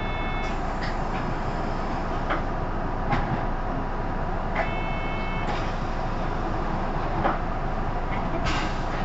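Isuzu PKG-LR234N2 city bus heard from inside while running: steady engine and road noise, with a few scattered clicks and rattles. A short high-pitched tone sounds twice, right at the start and about five seconds in.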